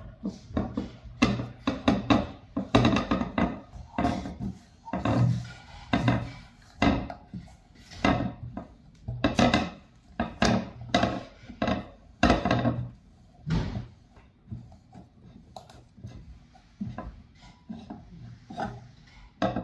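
Irregular knocks, scrapes and rubbing as a plastic disc diffuser and its steel base plates are handled and shifted on a wooden table, fitting an extra weight plate to the base.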